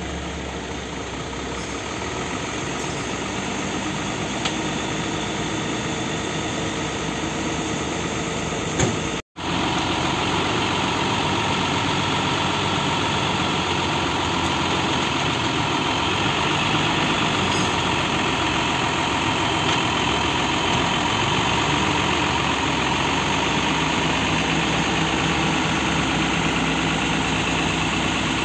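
Hino FM 260 TI truck's diesel engine running steadily at idle, with a brief break about a third of the way in, after which it runs a little louder.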